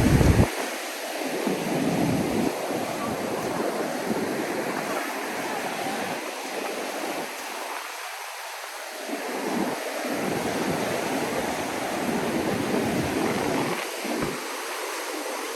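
Ocean surf washing onto a sandy beach as a steady hiss, with gusts of wind buffeting the microphone in low rumbles that come and go.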